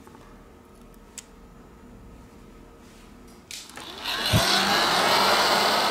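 Heat gun switched on about three and a half seconds in, its fan spinning up with a rising whine into a loud, steady rush of air. Before that it is quiet, with one small click about a second in.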